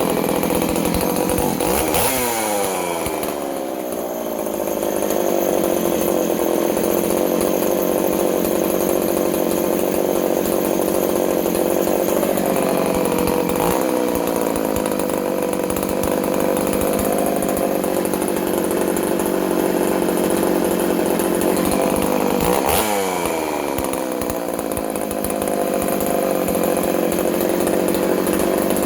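Ported vintage Poulan 3400 two-stroke chainsaw running steadily, blipped up in revs twice: about two seconds in and again some twenty seconds later. The engine has been freshly ported and its carburettor has not yet been adjusted.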